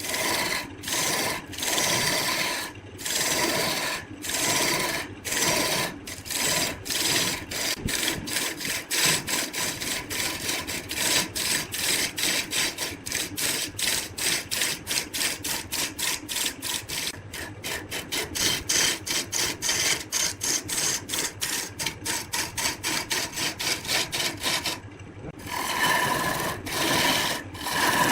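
A hand tool rasping or scraping on wood in repeated back-and-forth strokes, slow at first, then quickening to about four strokes a second, with a brief pause near the end.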